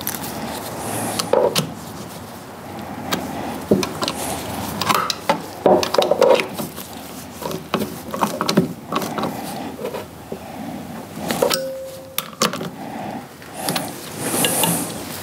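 Ratchet and socket turning bolts on a power steering pump: irregular metal clicks and clinks, with gloved hands rubbing and handling the pump. A short squeak comes about three-quarters of the way through.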